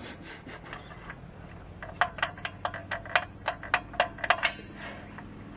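A quick run of about a dozen sharp clicks, about five a second, starting about two seconds in and lasting a couple of seconds, from hands working small parts at a small engine's carburetor and choke linkage. A faint steady low hum runs underneath.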